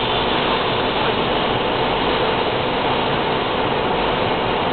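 Steady road and tyre noise heard inside a car's cabin while cruising on a wet motorway.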